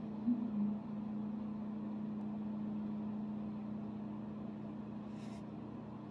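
A steady low hum runs throughout, with two brief low blips just after the start. About five seconds in comes a short soft swish of the ink brush across the paper.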